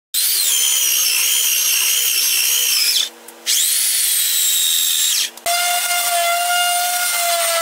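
Electric belt sander running on a glued-up red oak tabletop, set to its slowest speed with 220-grit paper, its whine rising and falling in pitch. It stops briefly about three seconds in and starts again. After about five seconds it gives way abruptly to a handheld orbital sander with a steadier, even hum.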